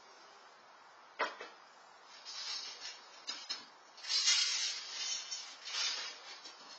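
Someone handling things while setting out cat food: a sharp click about a second in, then several bursts of rustling, the loudest about four seconds in.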